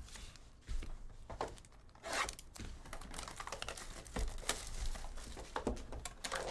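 Trading-card packs being handled and opened: wrapper crinkling and tearing with light clicks and taps of cards, getting busier about two seconds in.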